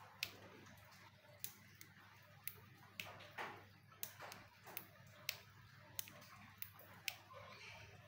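A small plastic on-off-on rocker switch clicked back and forth by hand, about a dozen sharp clicks spaced half a second to a second apart, each throw turning an LED light on or off.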